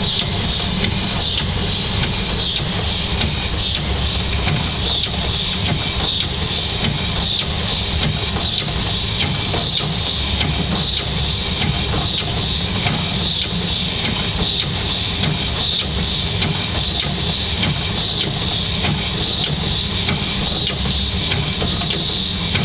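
Passenger train running along the line, heard from inside the coach: a steady low rumble with a higher hiss over it.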